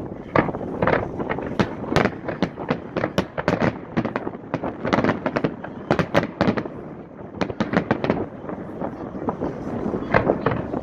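Fireworks display: a dense, irregular series of loud bangs from shells bursting, many in quick succession with echoing tails.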